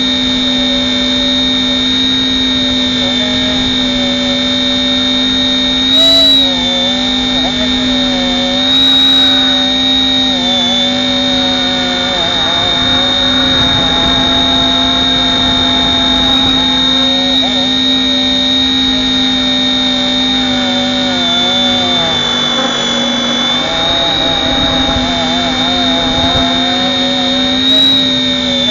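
RC helicopter's motor and rotors whining steadily in flight, the pitch wavering slightly as it corrects for the wind. A few brief louder bursts come through, about six and nine seconds in and near the end.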